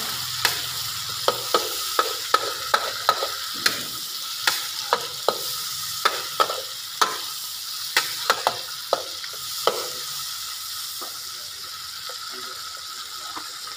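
Mushrooms frying in hot oil in a wok with a steady sizzle, while a metal spatula stirs them, knocking and scraping against the wok about twice a second. The spatula strokes thin out in the last few seconds.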